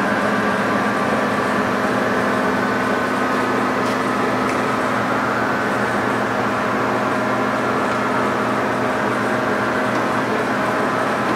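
TOS SU125 heavy engine lathe running under power feed: a steady hum from its geared drive with several steady whining tones.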